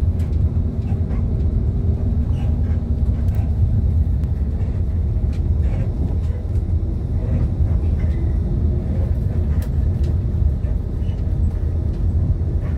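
Inside a moving bus: steady low rumble of the engine and tyres on a rough, damaged road surface, with light rattles now and then.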